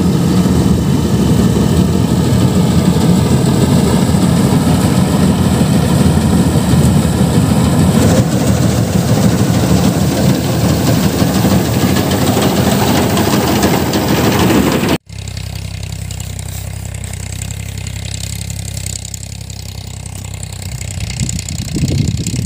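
Combine harvester's engine and machinery running steadily and loud. About fifteen seconds in it cuts off suddenly to a quieter steady running sound.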